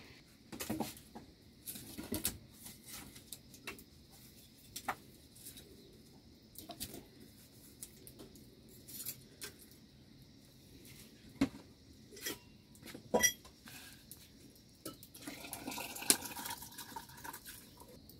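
Metal cooking pots knocking and clinking now and then as they are handled, with a busier stretch of handling near the end.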